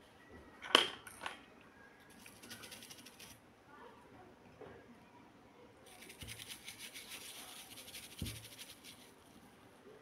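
Old toothbrush scrubbing the small plastic parts of a mobile phone in quick, fine strokes: a short spell about two seconds in and a longer one from about six to nine seconds. A sharp click sounds near one second in, followed by a smaller one.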